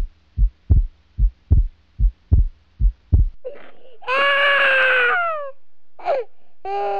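A heartbeat, steady double thumps a little more than once a second, stops about three seconds in. Then a baby cries: a long wail that falls in pitch at its end, a short sob, and another wail.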